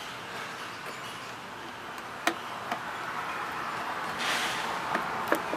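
Four sharp clicks of hands working on the lawn mower's plastic air filter housing as it is opened: two about half a second apart midway, and two more near the end.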